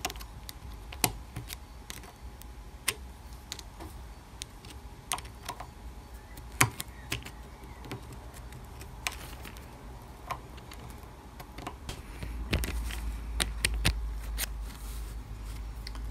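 Thin metal pick clicking and scraping inside a small threaded hole in a steel lathe tailstock barrel as debris is picked out, in irregular sharp clicks. From about twelve seconds in, a dull handling rumble joins the clicks.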